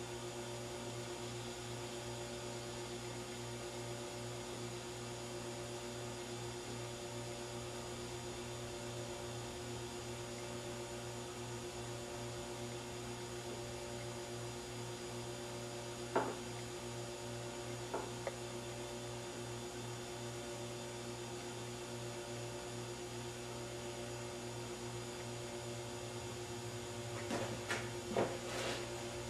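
Steady electrical mains hum, a buzz held at several pitches, with a few faint knocks about sixteen and eighteen seconds in and a short cluster of them near the end.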